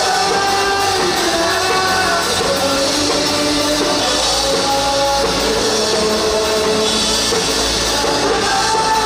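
A rock band playing live, with singing over the band.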